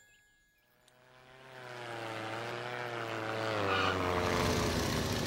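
Cartoon propeller aeroplane engine droning in about a second in and growing louder as it approaches, its pitch wavering slightly, with a rushing noise building underneath.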